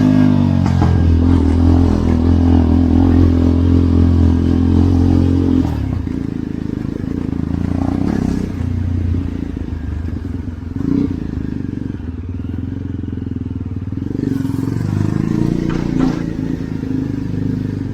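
Motorcycle engine running steadily, then dropping to a quieter, lower, uneven rumble about six seconds in, with a few knocks and clatters over it.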